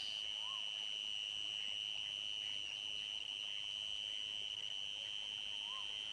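Insects trilling in one continuous, unbroken high-pitched drone, with two brief faint calls, one about half a second in and one near the end.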